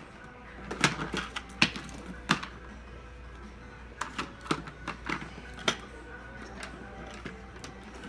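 Toy train engines clacking and knocking against the wooden track and table as they are pushed and picked up. A run of sharp clacks comes about a second in, and another run around four to six seconds in.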